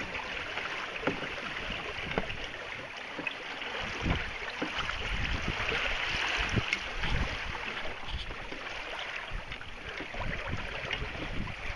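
Water rushing and lapping along a sailing canoe's hull as it sails, a steady hiss, with irregular low rumbles of wind on the microphone.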